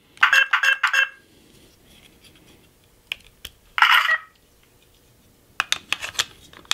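Electronic sound effects from an E-11 blaster replica's Plecter Labs Blaster Core sound board: four quick pitched beeps in the first second while the ammo counter reads empty, then a couple of clicks and a short electronic reload sound about four seconds in as the clip is reinserted and the counter refills. A run of sharp clicks from handling the prop follows near the end.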